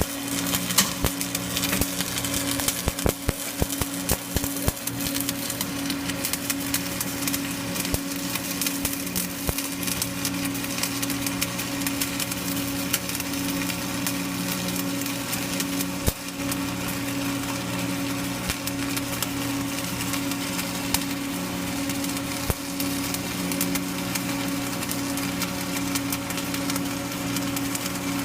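Arc welding: the arc crackles and pops with many sharp clicks, thickest in the first ten seconds or so, over a steady hum from the welding machine.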